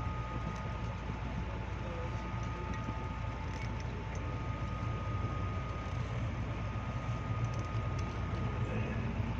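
Steady low rumble inside the carriage of an electric commuter train (KRL), with two faint steady high tones over it; the rumble grows slightly louder in the second half.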